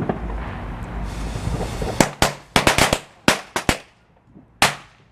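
Thunder Bomb firecrackers going off in a quick string of about ten sharp bangs, starting about two seconds in, with the last one near the end.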